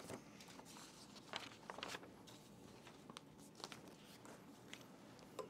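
Faint rustling and crinkling of paper sheets being handled and turned, a few soft scattered rustles over quiet room tone.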